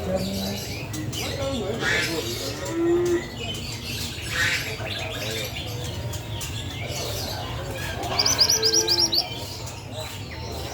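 A mantenan gunung songbird singing a fast trill of high chips about eight seconds in, with scattered chirps before it. Low calls sound in the background throughout.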